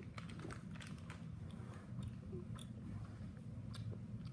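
Someone chewing raw mixed nuts: a run of irregular small crunches with mouth sounds, over a low steady room hum.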